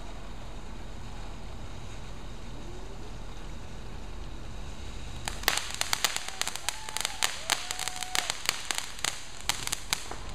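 Ground firework fountain spraying sparks over a steady hiss, then from about five seconds in letting off a rapid, irregular string of sharp cracks that runs until near the end.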